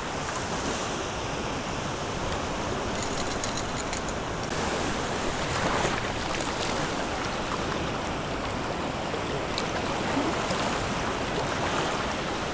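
Gulf surf washing and breaking in shallow water, a steady rushing.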